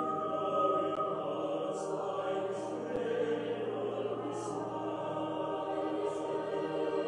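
Recorded choral music: a choir singing long, sustained held chords that change slowly.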